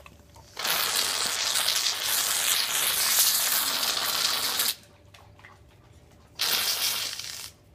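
Aerosol whipped cream can, charged with nitrous oxide, spraying: a long hiss of about four seconds, then a second, shorter spray of about a second near the end.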